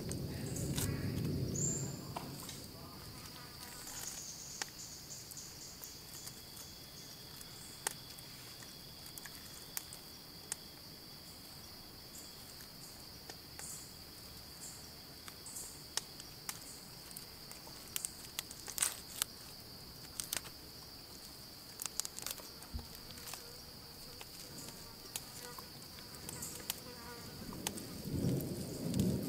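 Insects buzzing in one steady high-pitched drone, with scattered light clicks and taps over it.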